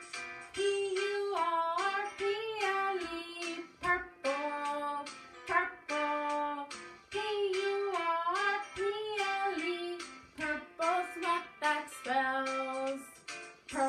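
A children's song playing: a sung melody with held, gliding notes over light instrumental backing.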